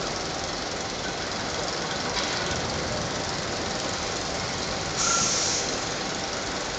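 Steel roller coaster train running on its track, a steady rumble and clatter. About five seconds in, a short hiss with a thin high tone cuts in briefly.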